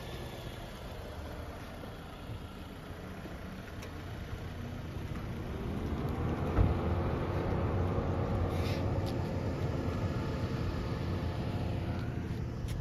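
A car engine running close by in a parking lot, with a low rumble under it; about five seconds in its pitch rises over a couple of seconds and then holds steady. A single thump comes about six and a half seconds in.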